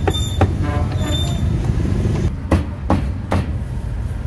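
Sharp knocks over a steady low rumble: two close together near the start, then three more evenly spaced, about 0.4 s apart, a little past the middle.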